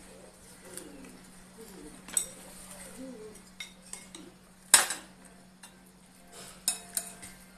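Metal spoons clinking and scraping against ceramic bowls and a plate as food is served, a handful of sharp clinks, the loudest just under five seconds in.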